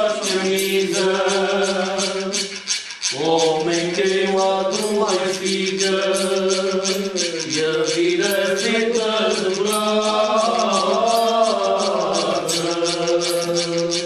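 A group of men singing a slow folk song together in long held notes, with a short break for breath about three seconds in. Under the voices runs a steady rasping beat from a hand percussion instrument, about three or four strokes a second.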